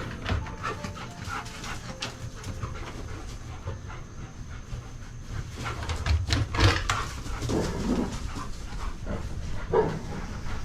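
Golden retriever panting, a run of short, breathy strokes that grows loudest about two-thirds of the way through, over a low steady rumble.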